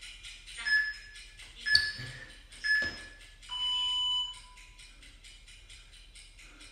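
Workout interval timer counting down: three short beeps about a second apart, then one longer, lower beep, marking the end of a HIIT interval. Background music with a steady beat runs underneath.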